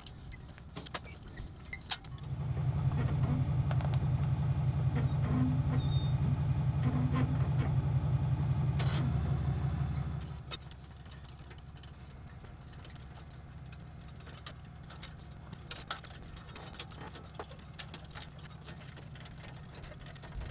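Pickup truck engine running steadily for about eight seconds, coming in about two seconds in and cutting out about ten seconds in, as the truck is backed up under the trailer coupler. A few faint clicks and knocks follow.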